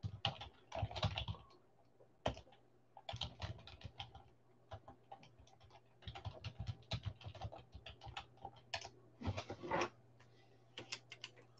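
Typing on a computer keyboard: irregular runs of key clicks with short pauses, tailing off to a few last keystrokes near the end. A low steady hum runs underneath.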